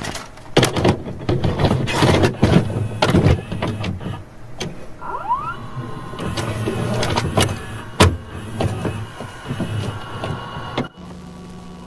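A videocassette recorder loading a tape: a string of mechanical clunks and clicks with a motor whirring, and a short rising whine about five seconds in.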